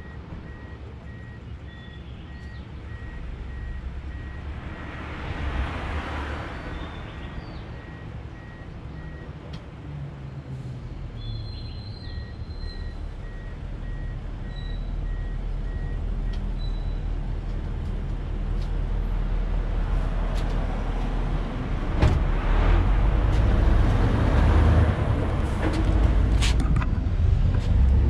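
Nissan Skyline R33 GTS-T's turbocharged RB25DET straight-six running, heard at the exhaust as a steady low drone that grows louder and steps up about two-thirds of the way through. A thin electronic beep repeats through the first half.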